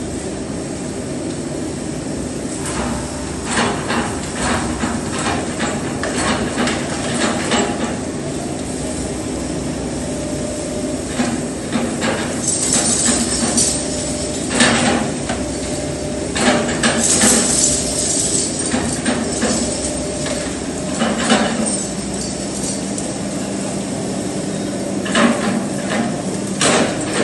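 Takeuchi excavator's diesel engine running steadily, with repeated bursts of knocking and clatter from concrete and masonry debris being broken and shifted.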